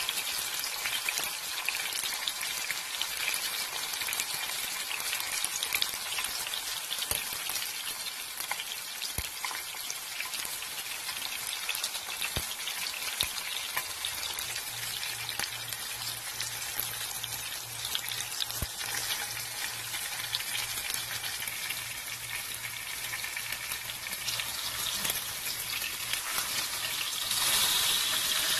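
Cooking oil sizzling and crackling steadily around a whole scored pompano pan-frying in a nonstick frying pan, growing louder and hissier near the end.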